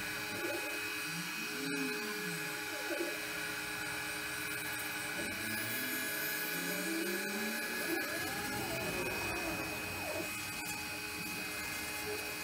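A five-axis CNC router at work on XPS foam: the spindle running steadily while the axis motors whine, their pitch gliding up and down as the head moves.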